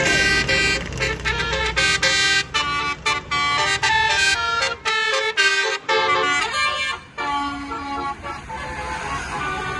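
A bus's Basuri 'telolet' multi-tone horn playing a quick tune of stepping notes with short breaks. The tune stops about eight seconds in, leaving engine rumble.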